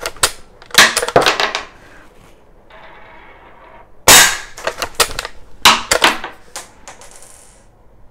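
Umarex Legends Cowboy lever-action CO2 BB rifle being fired and cycled. There are sharp metallic clacks as the lever is worked and the cartridge shells eject, and a loud shot about four seconds in, followed by another loud clack and more lever clicks.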